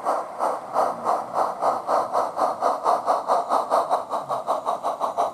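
Gauge 1 live-steam model of a Great Western 4-6-0 locomotive getting a train under way, its exhaust chuffing in sharp, even beats that quicken from about three to about six a second as it gathers speed.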